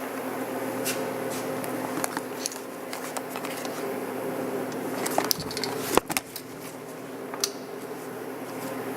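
Tree Master Journeyman 425 CNC vertical mill running under program: a steady mechanical hum with scattered clicks, and a short run of sharp clacks about five to six seconds in.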